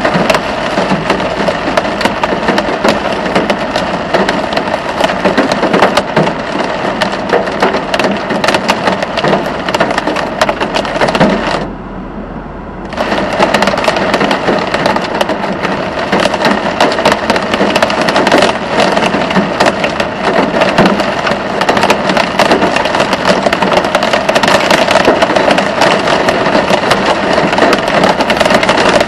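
Hail mixed with heavy rain pelting the car's roof and windshield, heard from inside the car: a loud, dense clatter of hard impacts that dips briefly about twelve seconds in.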